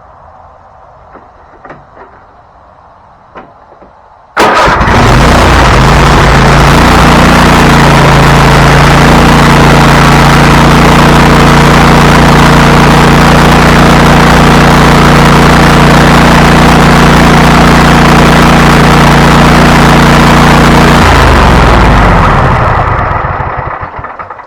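Craftsman T310 riding mower's Kohler 7000 Series V-twin engine starting about four seconds in, running steadily and loudly, then shut off and winding down near the end. It runs well on its newly replaced carburetor and fuel pump. A few faint clicks come before the start.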